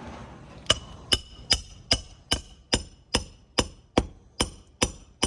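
Hammer driving roofing nails during a shingle repair: about twelve even blows, roughly two and a half a second, starting under a second in, each with a short metallic ring.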